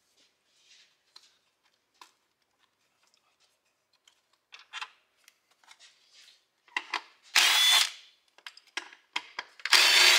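A handheld power tool runs in two short bursts about two and a half seconds apart, near the end, with light clicks and knocks of tools and parts between. It is undoing fasteners in the engine bay to get at the spark plugs.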